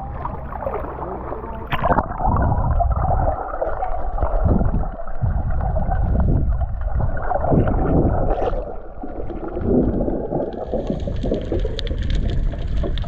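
Muffled gurgling and churning of water heard through a camera in or at the sea, with a click about two seconds in and a hiss added to the water sound near the end.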